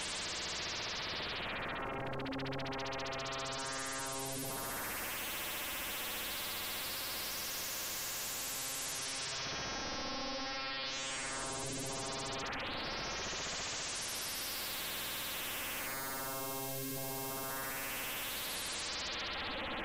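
Two-operator FM synthesis tone from a Kyma sound design system, its modulation swept live by PlayStation controller joysticks. A continuous electronic tone whose brightness rises and falls in several slow sweeps, its pitch shifting now and then.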